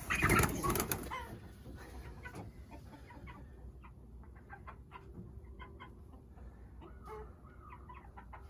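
Young meat chickens peeping in many short, faint, scattered chirps. A brief loud scuffling noise comes in the first second.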